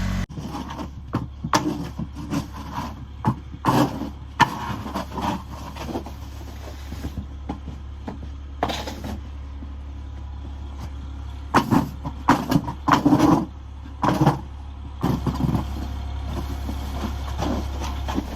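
Small lawn tractor engine running steadily at low speed, with irregular crunches, knocks and rustles over it from pushing the stuck tractor through snow and from handling the phone.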